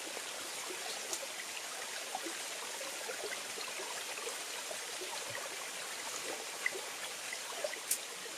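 Small waterfall splashing steadily into a shallow pool, with scattered drips and a few light clicks.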